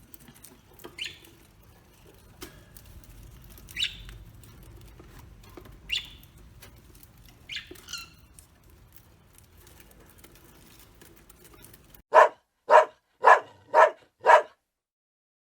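Four faint, short high-pitched chirps over a low background hiss, then a dog barking five times in quick succession about half a second apart.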